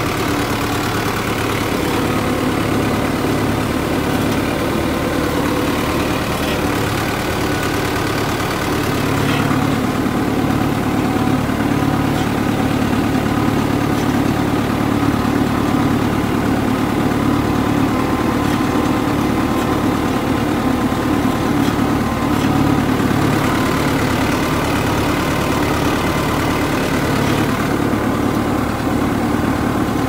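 Farm tractor engine running steadily at a constant working speed while it drives a mounted boom sprayer. It grows a little louder about nine seconds in.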